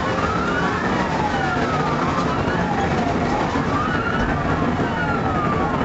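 Police cruiser siren wailing during a high-speed pursuit, heard from inside the car. Its pitch slowly rises and falls, with two wails overlapping, one rising as the other falls, over steady engine and road noise.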